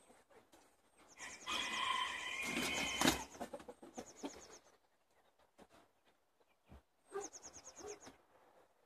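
Backyard chicken flock calling: a rooster crows about a second in, with quieter clucks and bursts of high, fast bird chirps. A sharp knock comes about three seconds in.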